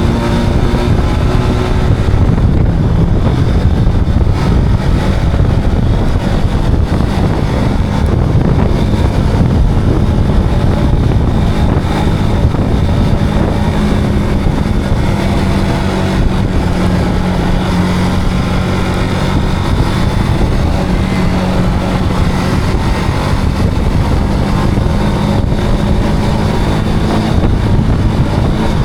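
Zontes cruiser motorcycle engine running at a steady cruising speed, with wind rushing over the microphone.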